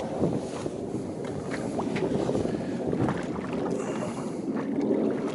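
Steady drone of a fishing boat's engine and hull at sea, with wind buffeting the microphone.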